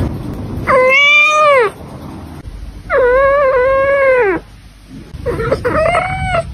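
Domestic cat meowing three times, with long drawn-out meows of about a second or more each. The middle meow is the longest, and each one drops in pitch at its end.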